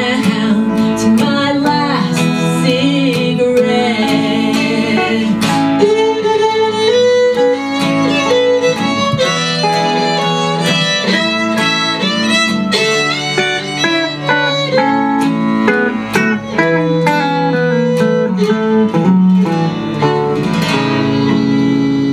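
Live string band playing an instrumental break: a fiddle takes a moving lead line over strummed acoustic guitar, electric guitar and bowed cello.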